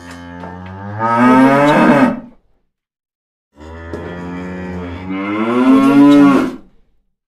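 A cow mooing twice: two long moos, each starting softer and swelling louder and slightly higher partway through, with a pause of about a second between them.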